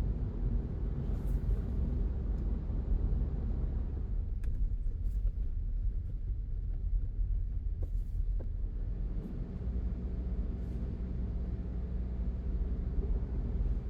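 Steady low rumble of a car driving, road and engine noise, with a few faint ticks. Its tone changes about four seconds in and again about nine seconds in.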